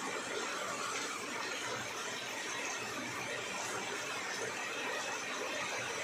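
Steady rain falling on broad leaves: an even hiss.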